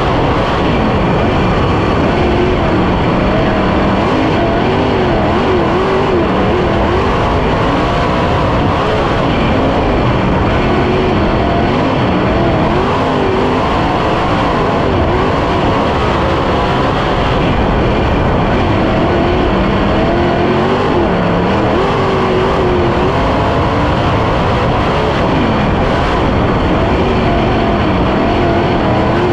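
410 sprint car's V8 engine heard from onboard the car at racing speed on a dirt oval, its pitch rising and falling every few seconds as the driver lifts and gets back on the throttle through the corners.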